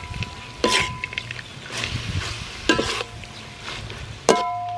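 Metal spatula scraping and clanking against a metal wok while stir-frying scallops, basil and roasted peanuts, the wok ringing after each strike, over a light sizzle. There are several clanks, the loudest near the end.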